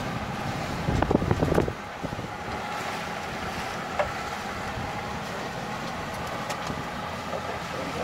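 Steady rush of wind and sea alongside a sailboat under way, with wind buffeting the microphone; a brief louder burst of low buffeting about a second in, and a single click near the middle.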